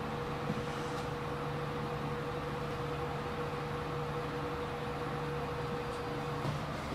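Steady hum and hiss of kitchen machinery, with a faint steady whine that stops near the end.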